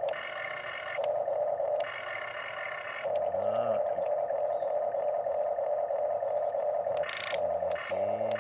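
Huina remote-control excavator's electric motors whining steadily as the boom lifts the bucket. A second, higher motor tone joins twice in the first three seconds, and there is a short sharp click near the end.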